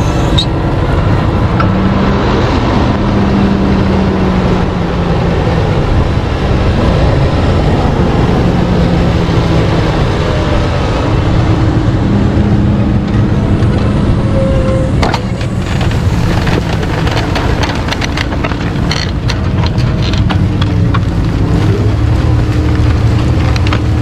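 Fendt 942 tractor's diesel engine running steadily under load as it pulls a mounted reversible mouldboard plough through the ground, with the rush of soil and tyres mixed in. From about halfway on there are scattered sharp clicks and knocks.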